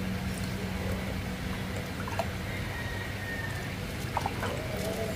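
Ducklings dabbling in a shallow plastic tray of water, with a few faint splashes and small ticks of bills and feet, over a steady low hum.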